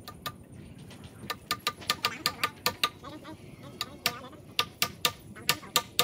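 Quick, uneven series of sharp metallic taps from hammering by hand, about four a second, each with a short ring; they start about a second in.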